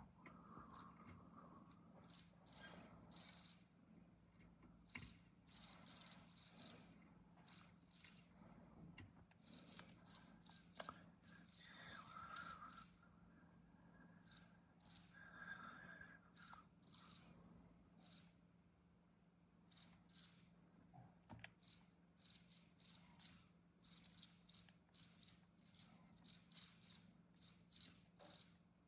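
Mealworms being chewed: quick, crisp, high clicking crunches in irregular bouts with short pauses between them. A faint low steady hum lies underneath.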